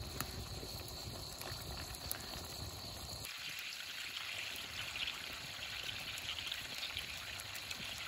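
Minestrone simmering in a cast-iron skillet over a wood fire, a steady bubbling hiss. The sound changes abruptly about three seconds in, turning thinner and hissier.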